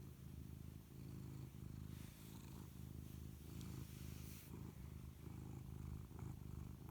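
Domestic cat purring close by: a low, deep, tractor-like rumble that pulses with each breath in and out.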